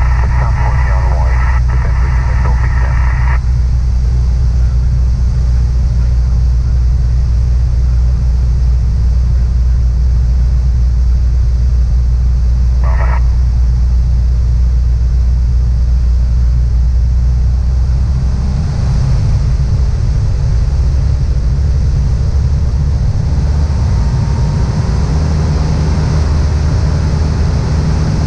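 Steady drone of a Piper Warrior II's four-cylinder Lycoming engine and propeller, heard from inside the cabin in flight. The engine note changes about two-thirds of the way through.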